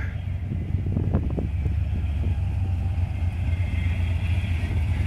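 Lifted 1980 Chevy C10 pickup's engine running as the truck drives up the street, getting louder as it nears in the last second or so.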